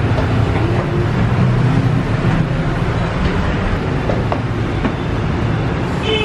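Steady low rumble of motor traffic, with a few faint knocks scattered through it.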